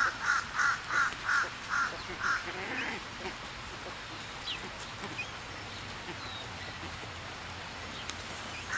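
White ibis calling a quick run of about seven short notes, roughly three a second, which stops about two and a half seconds in; one more call comes near the end over a steady background hiss.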